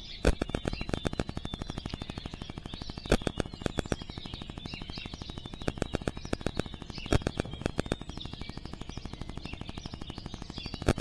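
Birds chirping and singing, over a rapid, regular clicking of several ticks a second with a few louder knocks among them.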